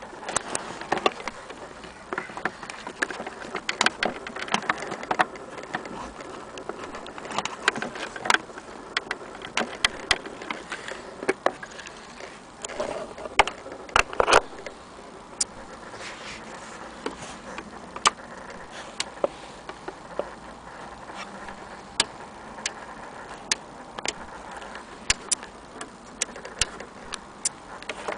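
Irregular clicks, taps and light knocks of plastic parts and a power cord being handled. The sewing machine's motor is not running.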